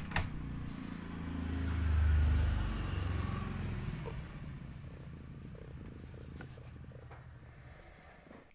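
Domestic cat purring in labour, a low, steady rumble that swells about two seconds in and then slowly fades.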